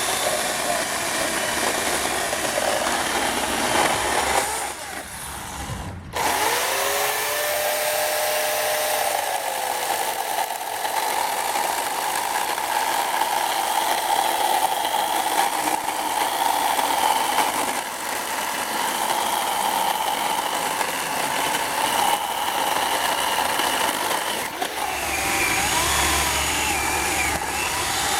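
Portland 14-inch electric chainsaw running and cutting apple wood, with a brief dip about five seconds in and a sharp break a second later before it runs on steadily.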